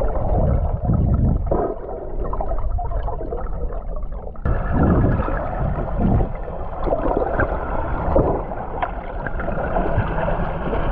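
Steady water noise with a low rumble, changing in character about four seconds in.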